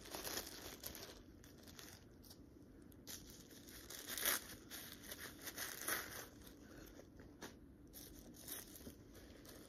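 Clear plastic bag and white paper wrapping crinkling and rustling as a handbag is unwrapped by hand, with a couple of louder crackles about four and six seconds in.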